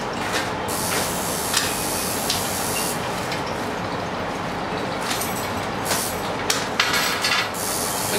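Black plastic wrapping crinkling and rustling as a package is pulled open by hand, a few separate crinkles early and a flurry near the end, over a steady loud background hiss.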